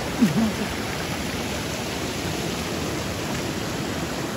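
Steady rush of stream water pouring over a small stone weir. A brief voice cuts in just after the start.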